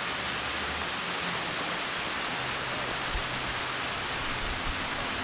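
Steady rushing hiss of a thin mountain waterfall pouring down a rock face.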